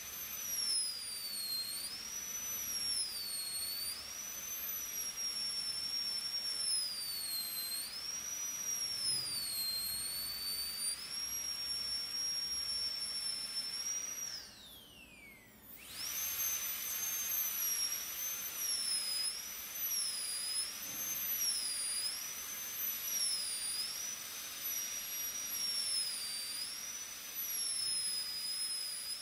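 High-speed air-turbine dental handpiece whining as its bur reduces a typodont tooth for a crown preparation. The pitch dips and recovers again and again as the bur bears on the tooth and eases off. About halfway through the handpiece spins down with a falling whine, stops for about a second and a half, then starts up again.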